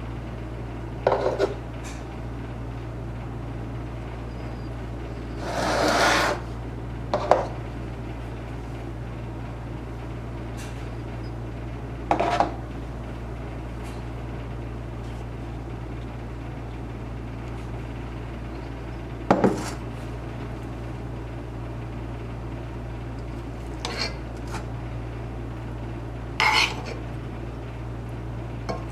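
Dishes and cutlery clinking and clattering now and then, about eight short knocks spaced several seconds apart, over a steady low hum.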